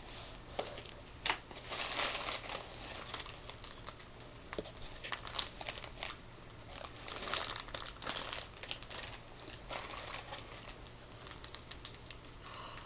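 Clear plastic bags crinkling and rustling in irregular bursts as they are handled and lifted out of a shipping box.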